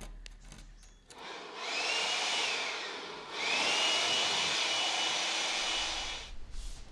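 A small fan-cooled electric motor is run twice. Each time its whine rises as it spins up and then holds steady over a rushing hiss. The first run winds down after about two seconds, and the second, which starts right away, runs about three seconds before stopping near the end.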